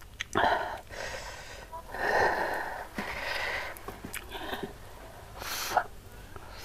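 A person breathing hard and sniffing close to a clip-on microphone: a series of about five noisy breaths, each about half a second long, while eating a very spicy chilli sambal with fried tilapia and rice.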